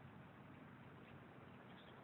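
Near silence: faint, steady background noise.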